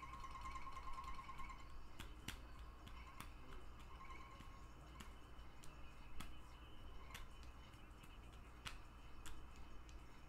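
Faint, irregular sharp clicks, about eight in all, spaced unevenly over a low steady hum; a faint high tone sounds briefly at the start.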